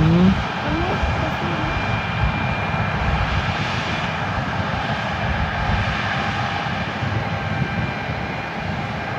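Heavy harvest machinery running steadily: a constant engine drone with a few faint steady whines above it.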